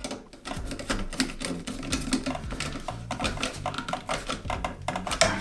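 A screwdriver turning down a terminal screw on the side of a wall switch to clamp a wire under it, giving a fast, irregular run of small metallic clicks and scrapes.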